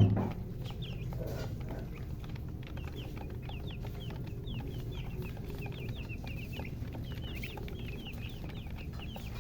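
A group of chicks peeping continuously, many short falling chirps overlapping. A loud bump right at the start, over a steady low hum.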